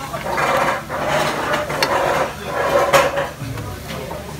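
Metal spoons scraping and clinking on a griddle plate, stirring and scooping fried rice. There are a few sharp clinks, and it dies down near the end.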